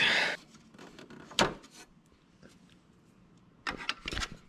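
Clicks and light knocks from handling a chrome-trimmed dash bezel and its fittings on a workbench: a short breathy hiss right at the start, one sharp click about a second and a half in, and a few knocks near the end.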